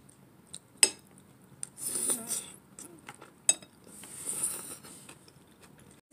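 Eating utensils clinking against a bowl: two sharp clinks, one about a second in and one about three and a half seconds in, with softer noisy stretches between and after them.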